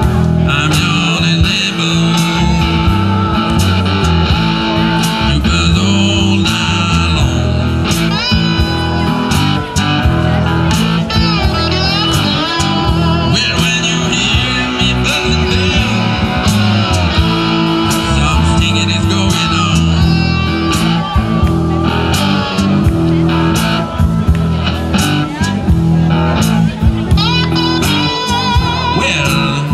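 Live electric blues played on homemade cigar-box guitars with bass and drums: an amplified guitar lead with wavering, bending notes over a steady beat, with no vocals.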